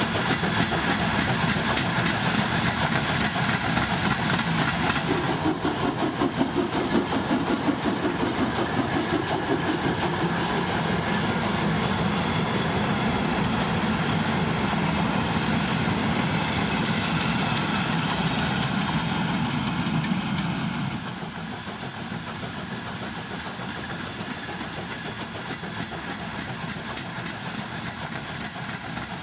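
BR 38 steam locomotive and its train of passenger coaches running past close by, with the coaches' wheels rattling over the track. About two-thirds of the way through, the sound drops suddenly to a quieter, more distant running train.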